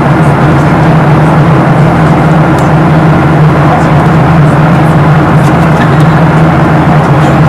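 Steady cabin noise of a Boeing 737-700 in the climb: the rush of airflow with the drone of its CFM56 jet engines, and a strong unchanging low hum beneath it.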